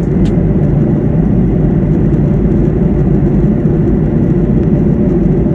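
A vehicle running: a loud, steady low rumble that does not let up.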